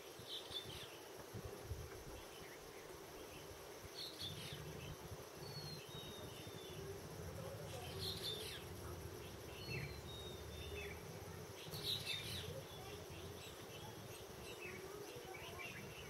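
Steady high insect drone, with a few short, thin descending bird whistles and brief bursts of splashing about every four seconds as a small bird bathes in a shallow puddle.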